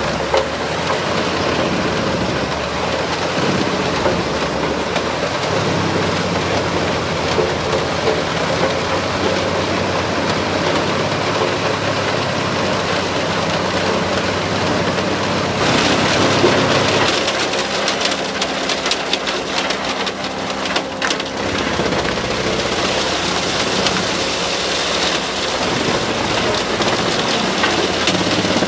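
Eschlböck Biber 84 wood chipper, driven by a Case Magnum 340 tractor, chipping crane-fed spruce trees: a loud, steady rushing noise of chips blown out of the chute and pattering into a truck container, over the tractor engine working under load. About halfway through the low engine hum fades and sharp cracking of branches being chipped comes to the fore.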